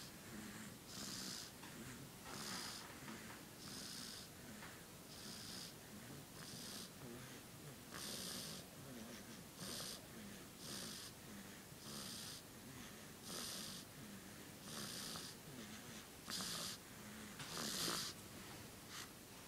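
A sleeping baby snoring, one raspy breath about every second and a half in a steady rhythm, the loudest near the end.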